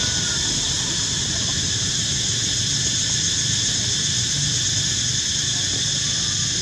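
A steady, high-pitched insect drone holds unbroken throughout, over a low rumble. A faint short chirp sounds right at the start and another near the end.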